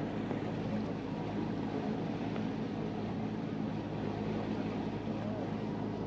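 A boat's engine running steadily at an even pitch, heard from inside its cabin.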